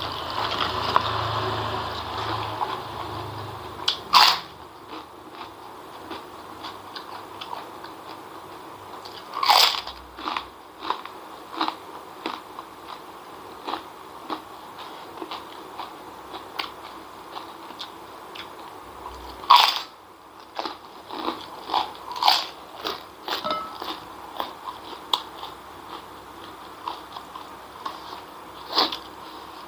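Close-miked eating: wet chewing and mouth noises, broken by a handful of loud, sharp crunches of biting into a crisp fried cracker, the loudest about four, ten and twenty seconds in.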